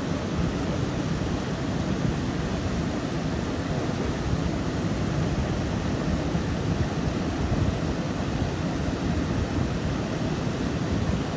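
Steady rush of a fast-flowing river, an even roar of water without breaks.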